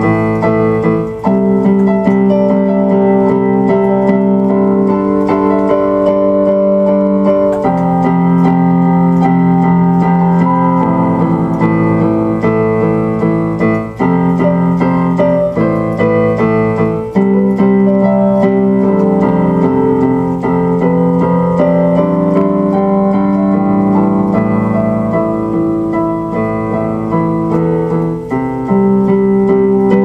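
Keyboard music: slow, sustained chords played on an electronic keyboard, changing every few seconds.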